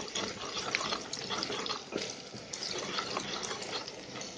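Chopped garlic and ginger with whole spices sizzling in hot mustard oil as a wooden spatula stirs them around the pan: a steady crackling hiss with scattered small pops.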